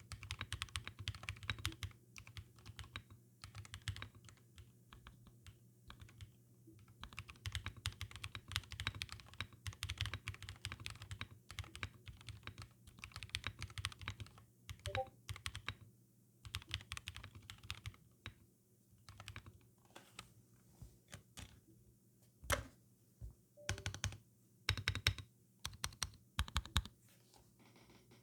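Typing on a Qwertykeys QK65 mechanical keyboard with lubed Durock POM switches, an FR4 plate, case foam only and Corsair PBT double-shot keycaps. Fast runs of keystrokes come in bursts with short pauses between them. Near the end there are fewer, separate, heavier strokes.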